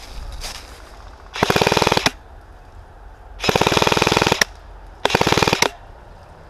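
Airsoft electric gun firing three full-auto bursts of rapid clicking shots. The middle burst is the longest, about a second.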